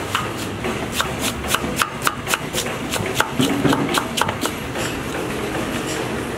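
Kitchen knife chopping onions on a wooden board, quick even strokes about four a second that stop about four and a half seconds in, over a steady background noise.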